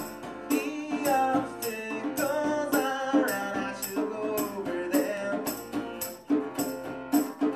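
Live acoustic band playing an instrumental passage: acoustic guitar notes over a steady percussion beat of crisp strokes about twice a second.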